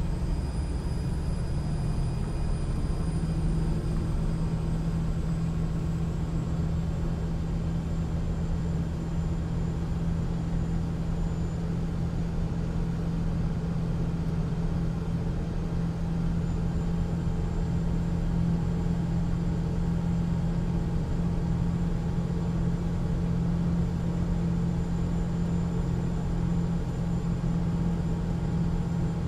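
Cat 3126B inline-six diesel of a Stewart & Stevenson M1078A1 LMTV military truck, pulling steadily at cruising speed: a loud, even low drone with road noise. A faint high whine eases down in pitch over the first few seconds.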